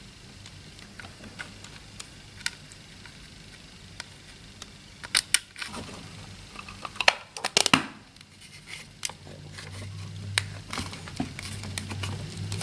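Irregular small clicks, taps and crinkling from handling parts and tools on a workbench, with a cluster of sharper clicks about halfway through. A low steady hum comes in near the end.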